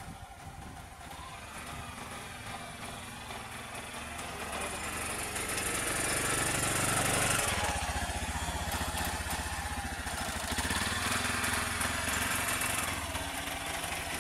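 A small single-cylinder engine running at idle. It grows louder towards the middle, and its note changes about halfway through.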